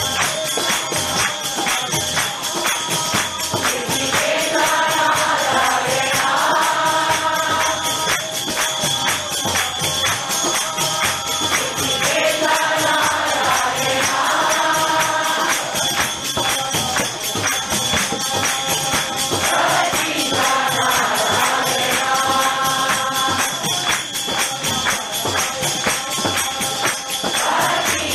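A group singing a devotional Hindu bhajan, accompanied by percussion that keeps a steady beat. A sung phrase comes round about every eight seconds.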